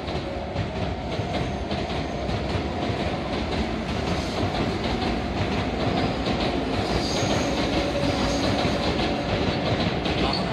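Electric commuter train running on the rails, with repeated rail clatter and a steady high tone over a rushing noise that grows slowly louder.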